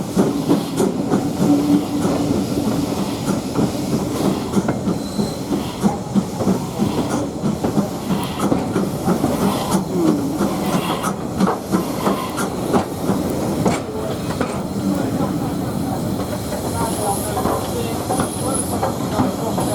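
Steam-hauled heritage passenger train running along the line: steady rumble of the carriages with wheels clicking and clattering over the rail joints.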